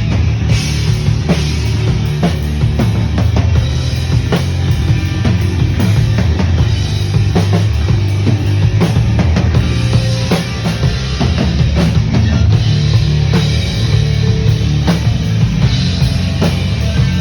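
Rock band playing live through a PA at a sound check: distorted electric guitar and bass over a drum kit hitting steadily.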